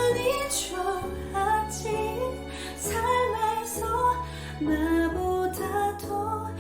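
A woman singing the closing phrases of a slow pop ballad, with sustained, wavering notes, over an instrumental backing track.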